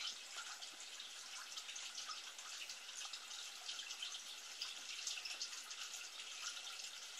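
Steady trickle of running water with a dense fine crackle, unchanging throughout.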